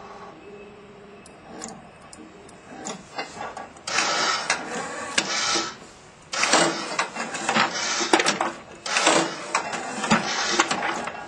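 Rhin-O-Tuff HD7700 electric paper punch, fed by an Onyx Piks-a-Lift picker module, running: a low steady hum with a few faint clicks, then from about four seconds in three long stretches of loud mechanical clattering and clicking as paper is picked and punched.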